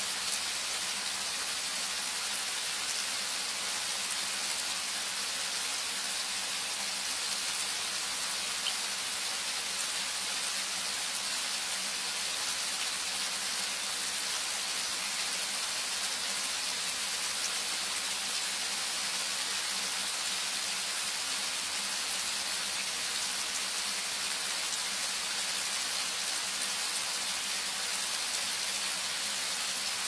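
Steady rain falling on a camper van, heard from inside: an even, unbroken hiss with no thunder.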